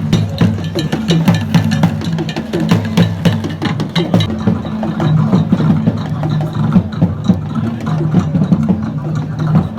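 Loud music with a steady bass line and busy drum and percussion hits.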